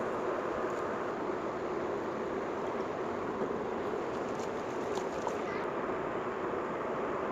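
A steady hiss with a few faint crackles throughout.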